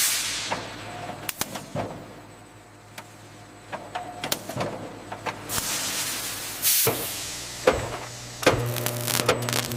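Processing machinery running: irregular clicks and knocks over a low hum that comes and goes. A rush of hiss fades away at the start and swells again a little past halfway.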